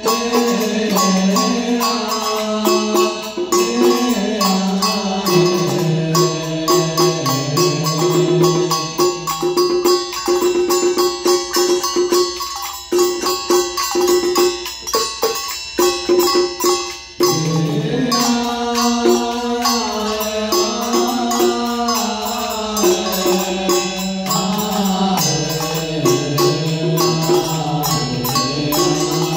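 Vietnamese ritual tán chant: a slow, drawn-out voice sung over steady, fast ritual percussion. Midway the voice stops for several seconds while the percussion keeps going, then the chant resumes.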